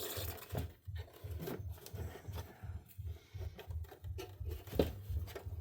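Scattered small clicks and creaks of a pry tool working old plastic taillight parts apart, with a sharper click near the end. Under it runs a low pulsing hum that repeats about three times a second.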